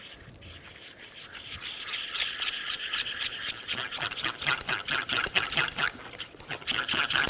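A thick cooked cream being stirred briskly in a pot as beetroot juice is worked in: quick, wet scraping strokes that grow louder after about two seconds.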